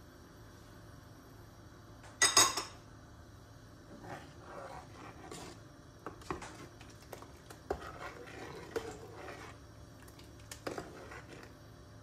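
A sharp clatter about two seconds in. Then a stainless steel ladle stirring thick lentil soup in a speckled stone-coated pot, with soft swishing and scattered clicks and knocks as the ladle touches the pot.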